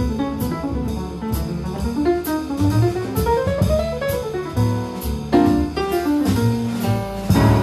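Jazz piano trio playing: upright piano, double bass and drum kit, with cymbal strokes about twice a second. A run climbs and comes back down a few seconds in, followed by chords.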